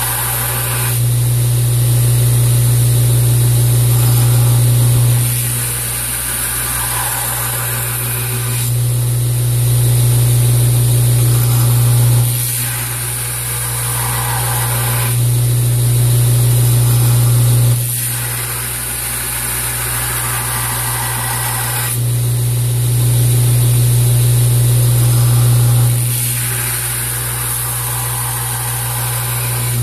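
A Wilmont LB1000 2x72 belt grinder running with a steady low motor hum while a steel knife blade is ground on the belt, with a hiss of abrasive on metal. The grinding swells and falls back in about four long passes of several seconds each.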